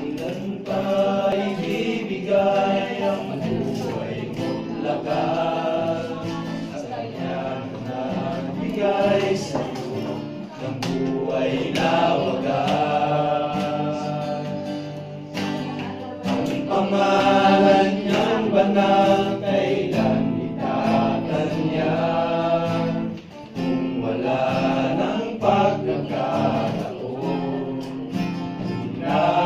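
A group of men singing a hymn-like worship song together, accompanied by strummed acoustic guitar.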